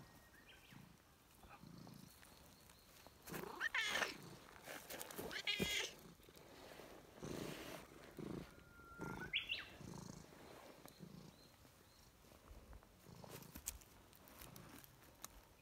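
Calico cat purring in slow, soft cycles, with two short meow-like calls a few seconds in and a brief rising chirp about halfway through.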